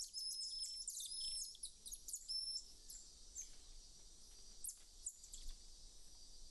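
Golden lion tamarins giving high-pitched chirping food calls: quick runs of short chirps with a few short held whistles, densest in the first three seconds and thinning out after.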